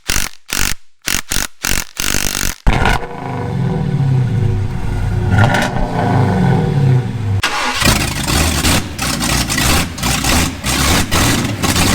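A quick run of sharp knocks, then an engine revving up and down for about four seconds, then a dense crackling, clattering noise.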